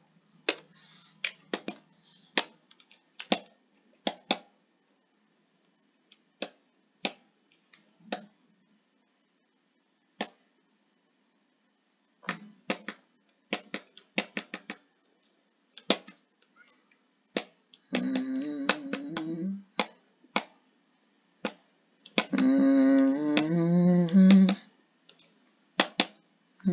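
Sharp, irregular clicks from a computer mouse and keyboard. Near the end a person hums two short stretches of a tune.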